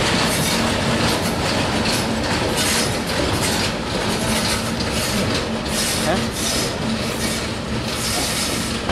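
Bangladesh Railway diesel locomotive and its covered freight wagons rolling past close by. The wheels clatter over the rail joints at about two knocks a second, over a steady hum.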